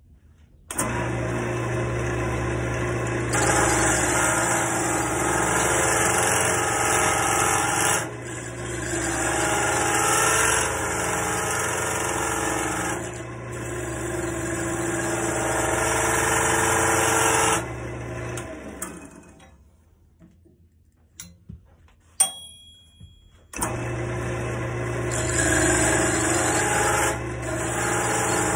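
Wood lathe motor switched on, running with a steady hum while the spinning dowel is worked, its noise growing louder for stretches. About 18 s in it is switched off and spins down to near silence, a single click follows, and it starts again about five seconds later.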